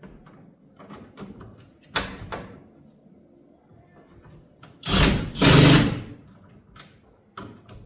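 Cordless impact gun run in two short bursts about five seconds in, driving the nut down on a carriage bolt, among small clicks and knocks of bracket hardware and a sharper knock about two seconds in.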